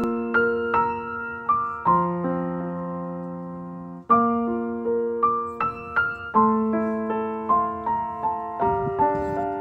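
Background piano music: a gentle tune of struck notes that ring and fade over held lower notes, with a brief break about four seconds in before it starts again.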